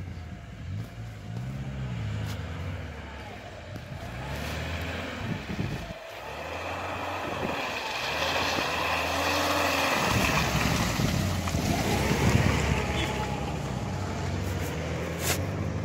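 A 4x4 SUV's engine revving up and down repeatedly as it drives through deep mud, with wheel and mud noise building. It is loudest past the middle as the vehicle comes closest.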